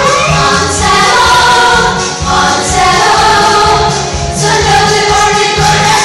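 Loud music: a group of voices singing together over instrumental backing with a steady beat.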